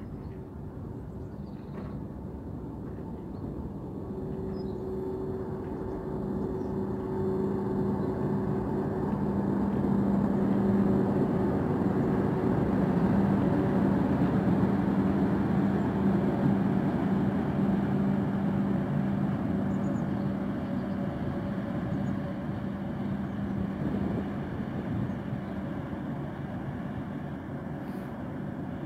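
Diesel engine of a loaded inland cargo barge running as the vessel passes below: a steady low hum that builds to its loudest about halfway through, as the stern and engine room go by underneath, then slowly fades as the barge moves away.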